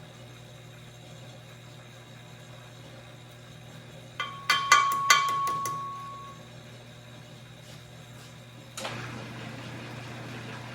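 Glass lathe running with a steady hum; about four seconds in, a quick run of six or seven sharp taps with a ringing tone as a cork is tapped in between the chuck and the glass tube to straighten it. Near the end a steady hiss joins the hum.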